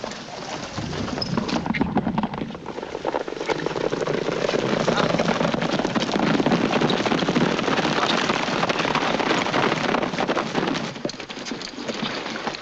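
Hoofbeats of several horses galloping on a dirt trail, a dense clatter that builds over the first couple of seconds and eases off near the end.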